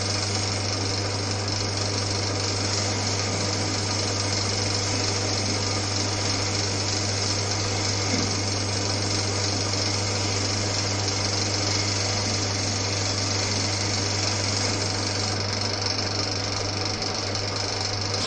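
Old Winfield metal lathe running steadily while turning a part, with a constant motor hum under a noisy whirr. Near the end it is switched off and the sound drops away.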